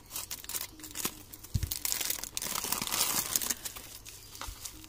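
Scissors snipping through a plastic courier mailer bag, with the plastic crinkling and rustling as the parcel is opened and the bubble-wrapped bottle is handled. One dull bump about a second and a half in.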